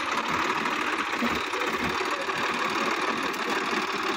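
Sonalika tractor's diesel engine running steadily.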